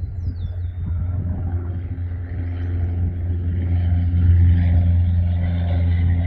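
Boeing 717 cabin noise: the steady low drone of its rear-mounted Rolls-Royce BR715 turbofans and airflow, growing louder about two seconds in.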